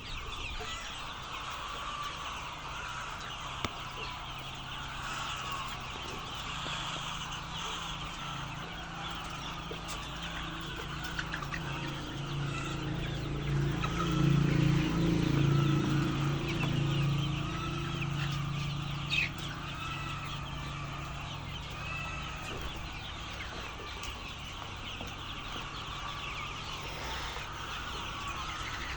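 A flock of chickens clucking and calling continuously, with many short, overlapping calls. About halfway through, a low hum swells up for several seconds and then fades back.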